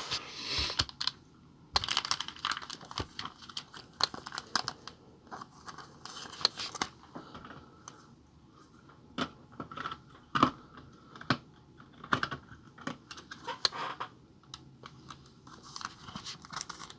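Scattered light clicks and taps with brief rustling, the small handling noises of desk work with cards and plastic, or of typing.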